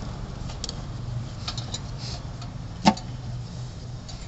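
Light metallic clicks of a long socket extension bar and socket working bolts on top of the engine, with one louder metal clank about three seconds in, over a steady low hum.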